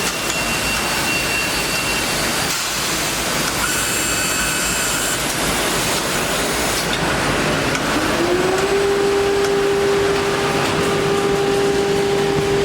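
HOMAG five-axis CNC woodworking machining centre running with a steady rushing air and machine noise. About eight seconds in, a motor spins up into a steady high whine.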